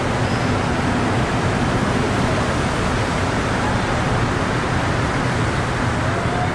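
Rubber-tyred Montreal metro train pulling into the station platform, a loud steady rolling noise.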